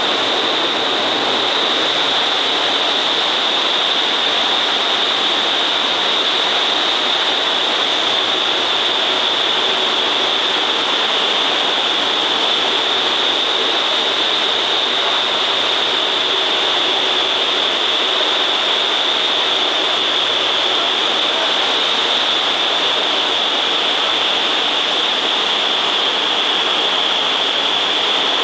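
Vertical wind tunnel of an indoor skydiving simulator running at flying speed: a loud, steady rush of air driven up through the flight chamber, with a steady high whine over it.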